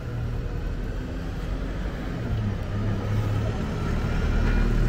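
Street traffic, with a motor vehicle's engine running close by as a steady low hum that grows louder in the second half.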